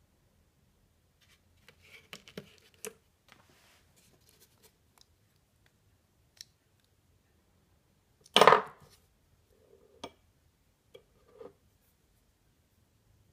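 Small steel lathe accessories handled and set down on a table and in cardboard boxes: scattered light metal clicks and clinks, with one much louder clack past the middle.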